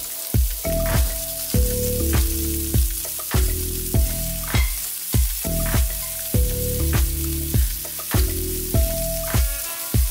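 Prawns sizzling and frying in hot oil in a non-stick wok, turned with a spatula, under background music with a steady beat and bass line, the music the loudest part.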